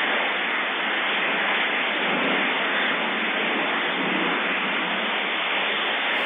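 Heavy rain falling: a steady, even hiss with no breaks, heard through thin, narrow-band recording.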